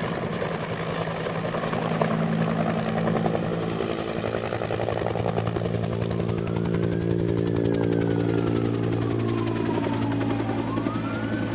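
Helicopter running overhead, a steady beating drone. In the second half a siren wails, rising and falling slowly.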